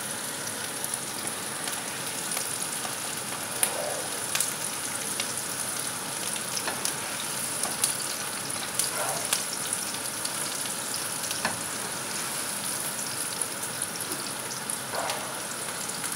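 Sliced onions frying in oil in a non-stick pan: a steady sizzle with scattered pops and crackles, and a plastic spatula stirring them a few times.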